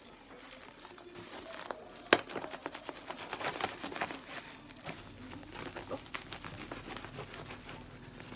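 Plastic parcel packaging crinkling and tearing as it is worked open by hand and with a knife, with irregular crackles throughout and one sharp snap about two seconds in.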